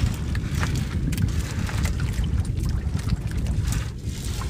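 Wind rumbling on the microphone over sloshing sea water, with scattered small clicks and knocks.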